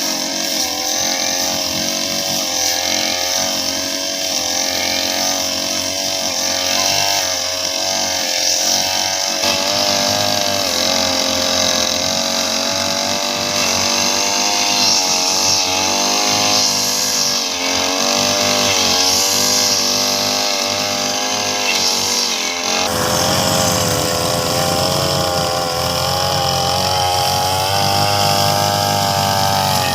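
Small two-stroke brush cutter engine running loudly as it cuts grass, its pitch wavering up and down with the throttle and load. About 23 s in, the sound changes abruptly and a low rumble joins in.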